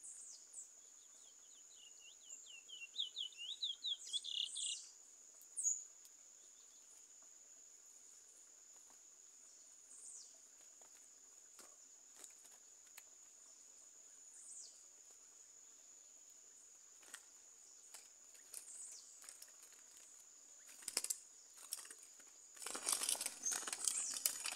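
A curió (chestnut-bellied seed finch) sings a short run of quick repeated notes that speed up, about two seconds in, with a few single chirps after, over a steady high insect buzz. Near the end comes a flurry of wing flapping as a bird flutters on the trap cage.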